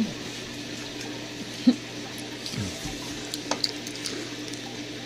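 Saltwater reef aquarium's circulating water trickling, over a steady low hum, with a few small clicks and one sharper click about a second and a half in.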